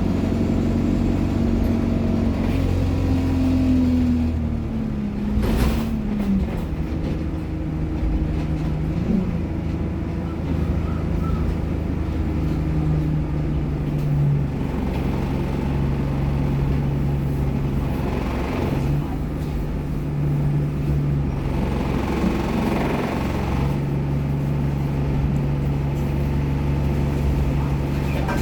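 ADL Enviro200 single-deck bus running, its engine rumble overlaid with the whine of its Allison automatic gearbox and turbocharger. The whine falls in pitch over the first few seconds as the bus slows, a short hiss comes about five seconds in, and the engine then holds a steady note.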